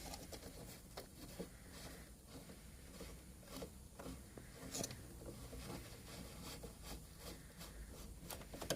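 Faint handling noises of a winch being fitted: scattered light clicks, rubs and scrapes, with a slightly louder click about five seconds in.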